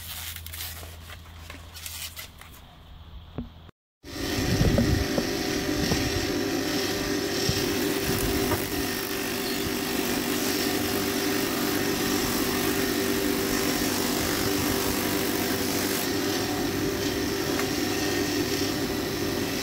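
Plastic packaging rustling and being handled for the first few seconds, then a Skil 150 mm bench grinder's electric motor running steadily at full speed with a cloth polishing buff spinning on its spindle.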